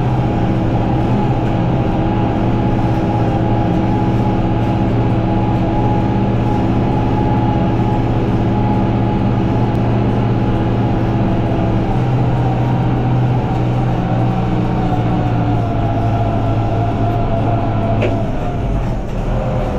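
YTO NLX 1054 tractor's diesel engine running steadily under load while pulling discs across a field, with a constant mechanical rattle. Near the end the engine note drops slightly, and there is a single click.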